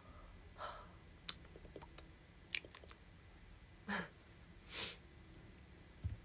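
Soft breaths in a quiet small room, a few short exhales, the two loudest about four and five seconds in, with a few faint small clicks between them.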